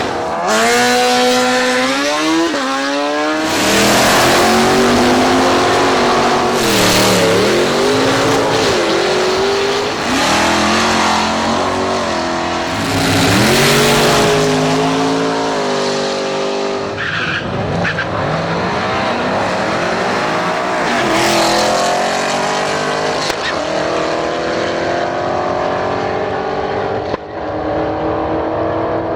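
Drag-racing car engines revving, their pitch rising and falling again and again, with tyre squeal, in a run of short clips.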